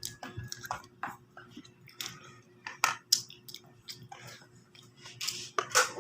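Chewing and mouth sounds close to the microphone, with many short, irregular clicks and crackles and a few small clinks of utensils.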